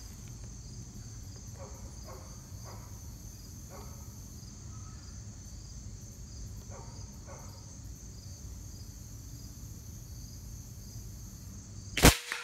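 A steady chorus of chirping insects, then about twelve seconds in a single sharp, loud report as the Winchester Big Bore Model 70 .357 PCP air rifle fires.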